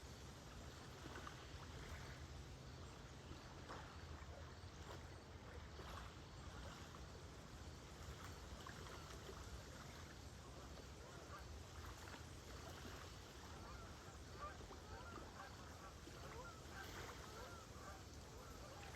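Faint, distant birds calling, many short overlapping calls that grow thicker in the second half, over the low, steady wash of small lake waves.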